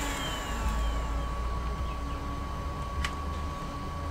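Steady hum and whine of electric workbench equipment, fan-like, with one light sharp click about three seconds in.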